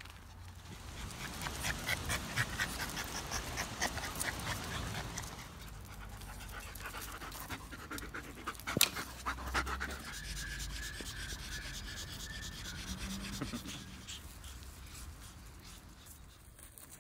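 A dog panting rapidly close to the microphone, with one sharp knock just before halfway and a thin, steady high tone for a few seconds after it.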